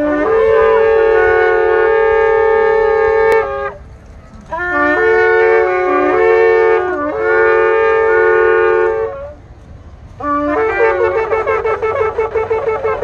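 Several shofars (ram's horns) blown together in three calls: a long held blast, then a blast broken into several shorter notes, then a rapid quavering run of short notes.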